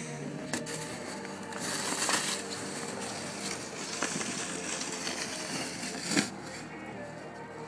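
Crunching and scraping in packed snow from footsteps and a plastic snow shovel, with a sharp knock about six seconds in.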